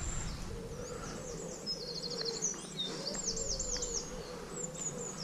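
Songbirds singing high and clear: a fast run of short chirping notes, then a few loud swooping whistles about three seconds in, over a low wavering insect buzz.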